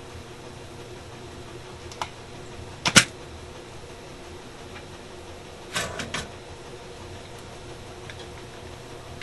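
Sharp clicks and taps from hand tools during desoldering on a tube radio chassis, over a steady low hum. A loud double click comes about three seconds in, and a short run of clicks a few seconds later.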